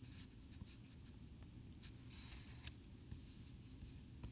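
Near silence: faint room tone with a few soft rustles and clicks.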